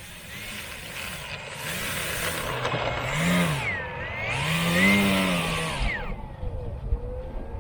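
RC model airplane flying past, its motor buzzing and rising then falling in pitch twice as it is throttled and passes, loudest about five seconds in.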